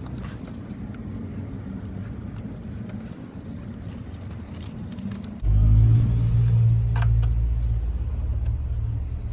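Pickup truck engine running with a steady low hum. About five and a half seconds in, it suddenly gets much louder and deeper and holds steady, with a couple of sharp clicks.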